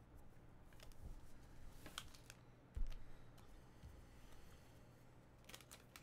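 Faint scattered clicks and light taps, with one soft, dull thump about three seconds in.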